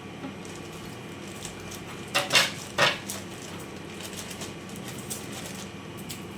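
Kitchen dishes and utensils clattering: a quick cluster of three short clatters about two seconds in, with a few faint knocks otherwise.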